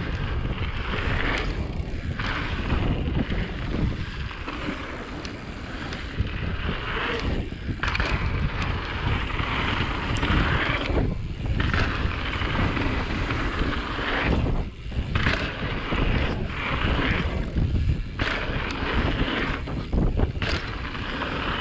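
Wind buffeting an action camera's microphone as a mountain bike descends a dirt trail at speed, with knobby tyres rolling on packed dirt and the bike rattling. The noise swells and fades, with several brief dips.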